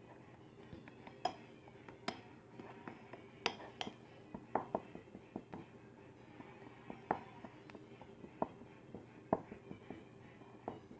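Flour and shampoo being stirred in a container, the stirring utensil giving light, irregular clicks and taps against the container.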